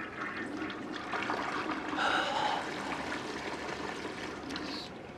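Water trickling and running in a toilet, with a man's heavy breaths.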